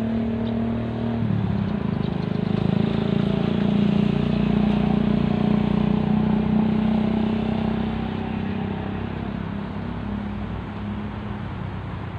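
A motor vehicle's engine hum passing by, swelling louder over a few seconds and then fading away.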